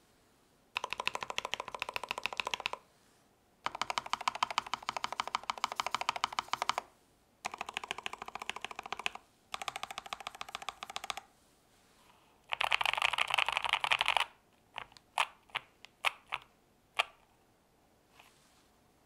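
Fast typing on a NuPhy Air60 V2 low-profile mechanical keyboard, whose case is lined with foam to damp reverberant noise. Five runs of rapid keystrokes, each a second or three long, are followed by a handful of single key presses.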